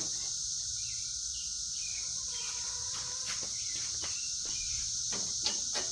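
Steady high-pitched chorus of insects, with a few sharp light clicks and knocks in the second half.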